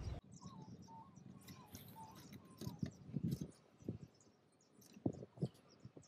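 Faint clicks and rustles of wire connectors being handled and pushed onto the terminals of a new dual-run AC capacitor, several short knocks from about three seconds in. A bird calls faintly in short warbling phrases during the first couple of seconds.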